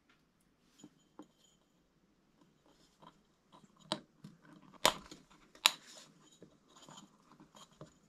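Small metal clicks and scrapes of a snap ring being worked by hand into its groove in a Rohloff Speedhub's aluminium hub cap, retaining the newly fitted bearing. Three sharper clicks come about halfway through, less than a second apart.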